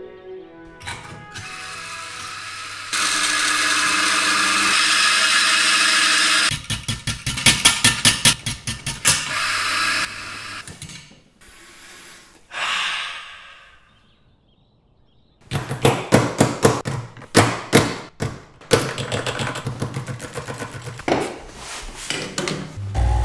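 Espresso-making sounds: a coffee grinder runs steadily for about three and a half seconds, followed by a fast run of clicks. About halfway through comes a long sniff, then after a short quiet stretch a series of sharp clicks and knocks from portafilter and espresso machine handling.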